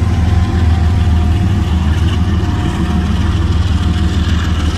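Diesel locomotive engine running with a heavy, steady low rumble, a train sound effect under the animated intro.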